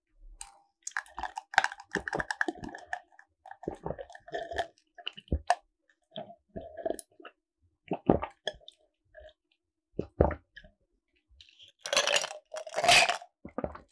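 Close-miked gulping and swallowing of a cold drink from a glass mug, with clicks and short clinks from the glass and its ice. There are two louder breathy sounds near the end.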